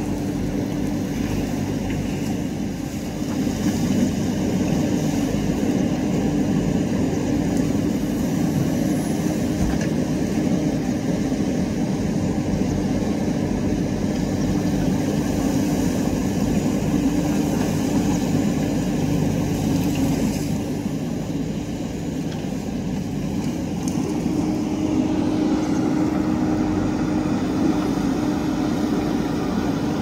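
Diesel engine of a JCB 3DX backhoe loader running under load as the backhoe digs. The engine note is steady, gets louder a few seconds in, and dips for a few seconds about two-thirds of the way through.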